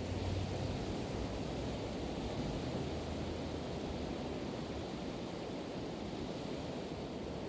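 Steady, even wash of Pacific Ocean surf. A low rumble underneath fades out about halfway through.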